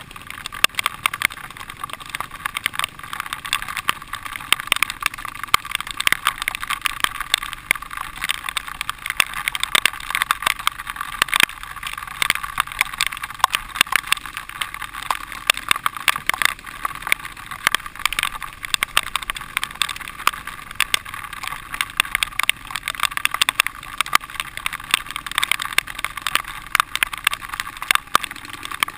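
Dirt bike ridden over a rough, muddy trail, heard from a camera worn by the rider: steady engine and wind noise thick with constant rattling knocks from the bumpy ground.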